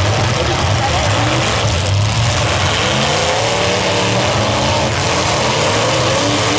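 Several demolition derby cars' engines running and revving together, their pitches rising and falling over one another.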